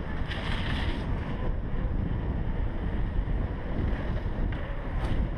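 Wind buffeting the microphone of a helmet-mounted GoPro Hero3 on a mountain bike rolling downhill on pavement: a steady low rumble, with a brief hiss about half a second in and a short click near the end.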